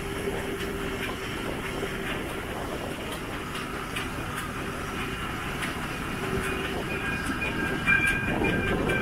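Steam locomotive 414.096, a 1906 StEG-built Austrian 0-8-0, running along the line, heard from the front of the engine: a steady running noise with irregular clicks of the wheels over the rail joints. A thin high squeal comes in near the end.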